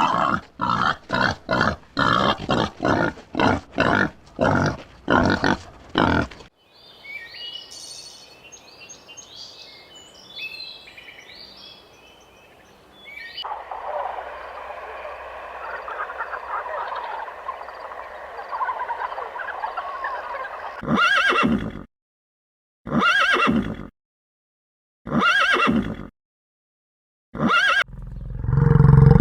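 A series of different animal calls in turn. A rapid run of about a dozen loud calls is followed by high chirping, then a busier stretch of mixed calls, and near the end four separate calls of about a second each.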